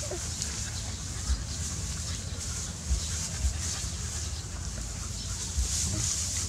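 Dry straw rustling and crackling as two puppies wrestle in it, with a few low thumps.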